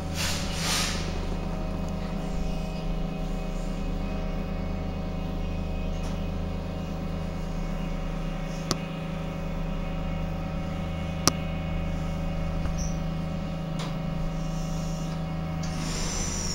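Stadtbahn light-rail cars standing in a station, their electrical equipment giving a steady hum with several held tones. Two sharp clicks come in the middle, and a falling high whine starts near the end.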